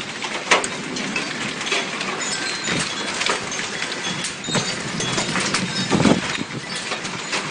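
Hailstorm: a dense, steady hiss of falling hail and rain, with many sharp clicks and knocks of individual hailstones hitting hard surfaces.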